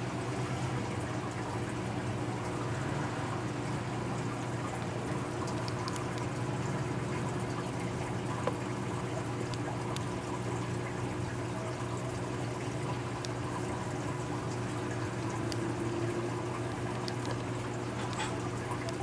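Saltwater reef aquarium running: a steady trickle and splash of circulating water over a low, steady hum.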